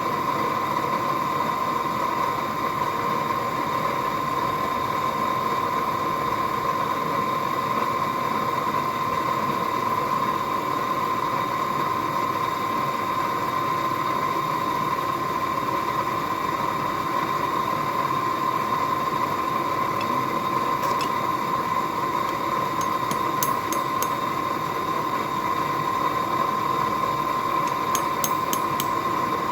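Forge air blower running steadily: a rush of air with a steady whine. A few faint clicks come in the last third.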